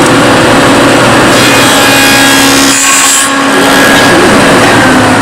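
Table saw running loudly with a steady motor hum, the sound turning brighter and harsher from about one to three seconds in as the blade works through wood.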